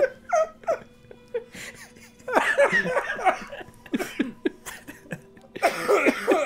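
People laughing in bursts, starting about two seconds in, then breaking off and starting again near the end.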